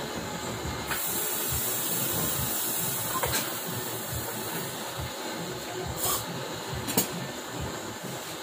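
Steady hiss of a gas torch flame, louder for about two seconds near the start, with a few sharp metallic clicks from the stainless steel sheet being handled.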